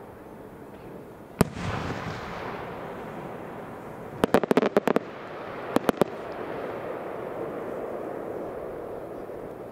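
Aerial fireworks shells bursting: one sharp bang about a second and a half in, trailed by a rolling rumble, then a rapid cluster of about ten crackling reports a little after four seconds and three more a second later, with a lingering rumble after them.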